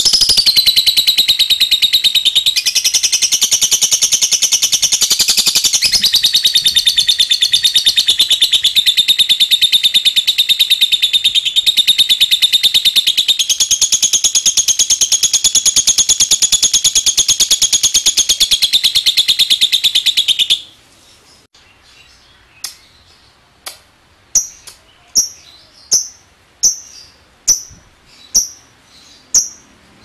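Fischer's lovebird giving a long ngekek: a shrill, very rapid chattering trill held unbroken for about twenty seconds, then cut off suddenly. After a short pause it gives a string of short ticking chirps (ngetik), a little under one a second.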